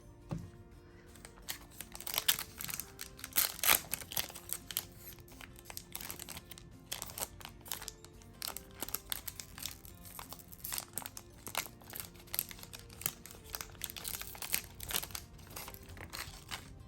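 Foil trading-card booster pack being crinkled and torn open by hand: a rapid, irregular run of crackles, loudest a few seconds in. Soft background music plays underneath.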